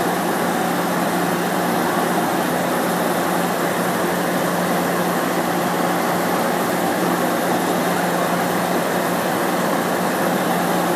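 Steady drone of the equipment behind the louvered side grilles of a standing Pacific Surfliner bi-level passenger car: a constant low hum under even fan-like noise.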